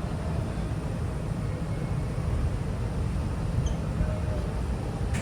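Steady low rumble of wind and ship noise on a cruise ship's open deck, with no horn sounding yet.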